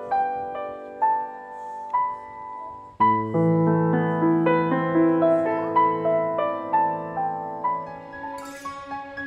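Background piano music: a slow melody of single struck notes, with lower notes joining in about three seconds in.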